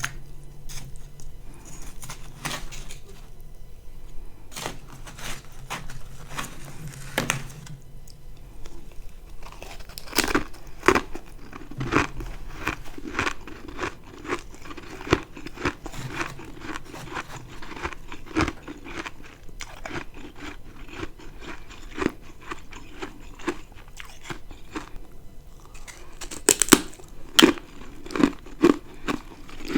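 Close-miked biting and chewing of ice: many sharp crunches and crackles, sparser at first and coming thick and fast from about ten seconds in.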